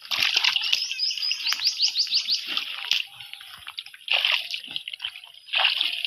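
Water sloshing and splashing in irregular bursts as someone works through it by hand, feeling for fish. About a second in, a quick run of about eight short high chirps.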